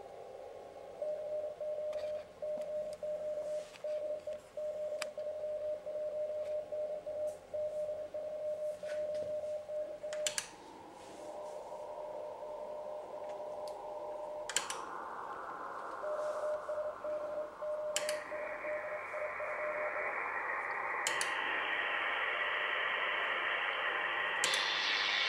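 Morse code tone keyed on and off from the AEG Telefunken E800/2 shortwave receiver in CW mode through its narrow filter. Partway through, the bandwidth is switched wider step by step. Each button press gives a click, and the receiver's hiss grows broader, brighter and louder while the Morse tone fades into it.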